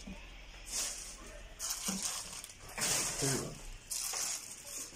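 Plastic packaging of sterile medical supplies crinkling as it is handled on a counter, in four or five short bursts about a second apart.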